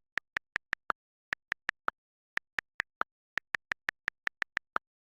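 A run of short, sharp clicks in quick groups of four to nine, about five a second, with brief pauses between the groups and complete silence behind them.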